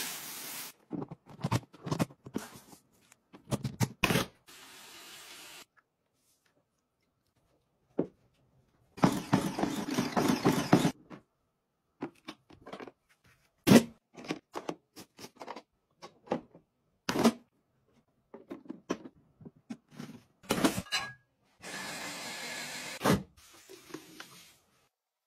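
Short handling sounds cut one after another with dead silences between: rice pouring into a clear plastic bin, plastic clicks and knocks as a folding foot-bath tub is handled, and cleaning powder pouring into a toilet bowl.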